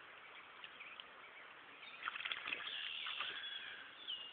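Faint river-side ambience with birds chirping, and a brief cluster of clicks about two seconds in.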